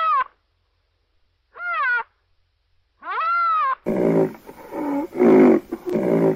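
Designed creature calls for a western black rhinoceros, mixed from rhinoceros, triceratops and bull recordings: short, high, arching squeals, then from about four seconds in a loud, rough run of repeated bellowing calls.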